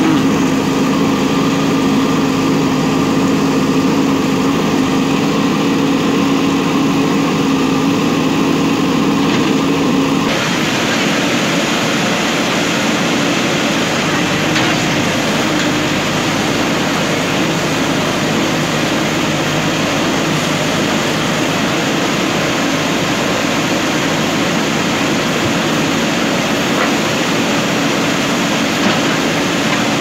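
JCB 3DX backhoe loader's diesel engine running steadily while the backhoe arm digs. About ten seconds in the sound changes abruptly from a smoother, steadier engine note to a rougher, noisier one.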